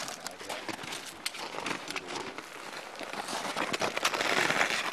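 Footsteps crunching in snow, an irregular run of short crunches over a faint hiss.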